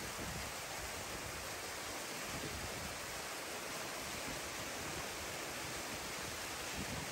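A steady, even rushing noise with no distinct sounds standing out of it.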